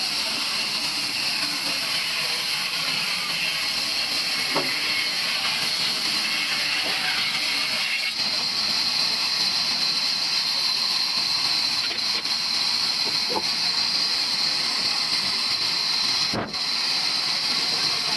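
Sawmill saw running steadily through a wooden beam: a continuous high hiss, with a brief drop about sixteen seconds in.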